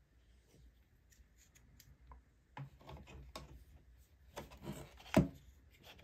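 Plastic fan of a hair dryer being handled and pushed back onto its motor shaft: plastic rubbing and light knocks, with one sharp click about five seconds in.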